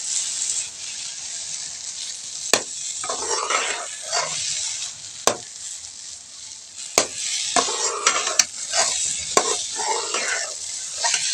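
A metal spoon stirs and scrapes egg and semolina halwa as it fries in an aluminium pan over a steady frying hiss. The spoon knocks sharply against the pan several times.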